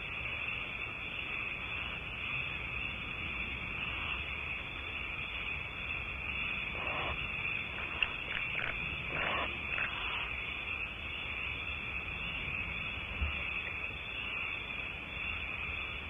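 Steady, high hiss from a nest-box camera's audio feed, with a few faint rasping sounds about halfway through and a single click.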